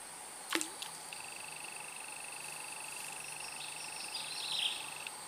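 Quiet swamp ambience of insects: a steady high trill starts about a second in and stops near the end, over a constant higher-pitched insect whine. A single short knock sounds about half a second in.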